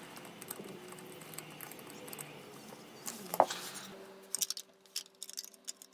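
Faint handling noise of fingers working the wires and plastic connectors at a fridge compressor's starter device: light rustling, one sharper click about three and a half seconds in, and a run of small ticks near the end.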